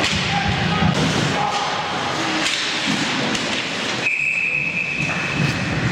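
Busy ice hockey rink noise of skating and scattered shouts, then about four seconds in a referee's whistle blows one long steady high blast, stopping play as the goalie smothers the puck in a scramble at the net.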